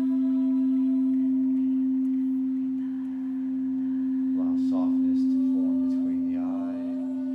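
Frosted quartz crystal singing bowls ringing, one steady low note strongest with fainter higher tones above it. The sound swells and eases slowly in loudness.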